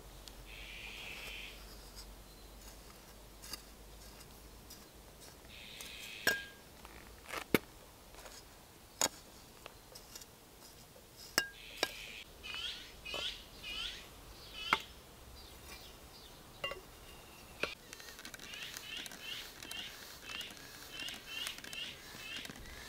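A trowel scraping and pushing dry cement powder and gravel between basalt stepping stones, with several sharp clicks as the blade knocks against the stone. In the second half a bird sings in the background, a quick run of short repeated chirps.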